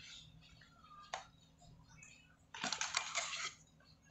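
Hard plastic clicks and rattling as the lid of a small plastic container-style display box is taken off: one click about a second in, then a quick burst of clicks and rattles about two and a half seconds in, lasting about a second.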